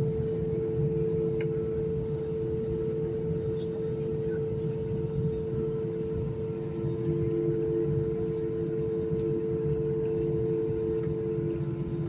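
Airbus A320 jet engines running steadily: a two-note whine over a low rumble, the higher note fading away near the end.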